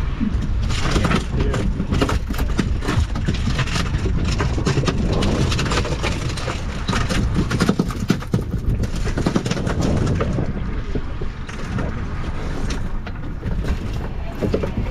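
Wind buffeting the action camera's microphone with a steady low rumble on a boat at sea, broken by many short knocks and clatters of handling on deck.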